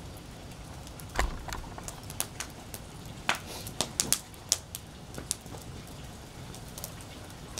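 Wood fire in a fire pit crackling, with irregular sharp pops and snaps; the loudest, with a low thump, comes about a second in.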